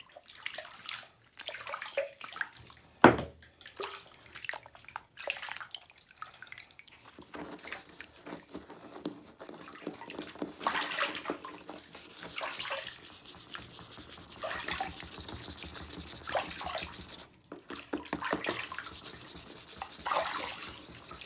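Wet hands squishing and rubbing the soggy remains of a bath bomb in bath water, with watery splashes and drips. One sharp knock about three seconds in.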